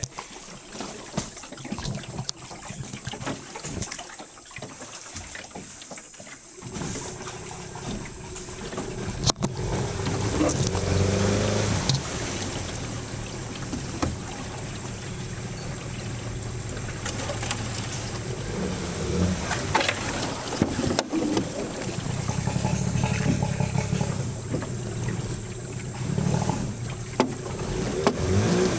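A boat's outboard motor running steadily. It comes in about seven seconds in, after a quieter stretch, and gets louder.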